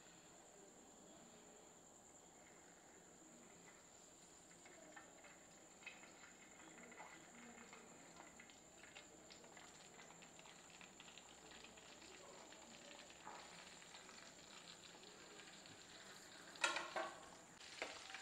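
Flour-coated chicken pieces deep-frying in hot oil: a faint steady sizzle with fine crackling. Near the end come a couple of sharp clatters.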